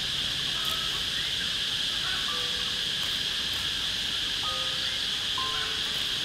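Steady insect chorus, a continuous high-pitched buzz, with a few short, faint whistled notes scattered through it.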